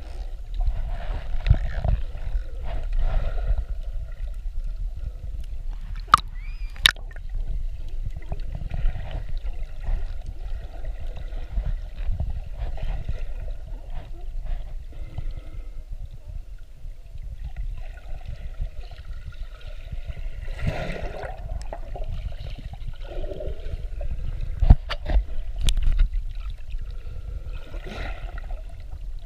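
Underwater sloshing and gurgling of sea water around a submerged camera: a steady low rumble with swelling washes of bubbling water. There are a few sharp clicks, two about six seconds in and a couple more near the end.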